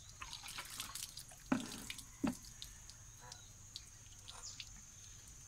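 Live swamp eels shifting in shallow water in a plastic bucket, making small wet splashes and drips, with two louder slaps about a second and a half and two seconds in.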